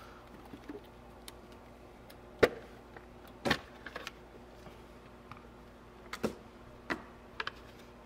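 Scattered light plastic clicks and knocks from hands working in a car's engine bay, opening the underhood fuse box to find the injector fuse, over a faint steady background hum.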